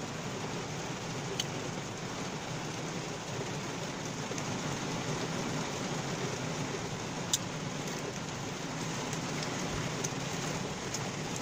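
Steady rushing noise inside a car cabin, with a couple of faint clicks, the clearest a little past the middle.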